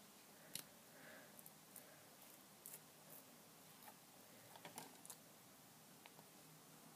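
Faint, scattered small clicks and taps from handling a small glass nail polish bottle (clear top coat), with a few quick clicks close together about five seconds in, over near silence.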